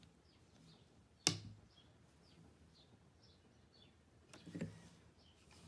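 Wooden rigid heddle loom being worked: one sharp clack about a second in and a softer knock near the end as the heddle is moved and the weft beaten in. Faint bird chirps in the background.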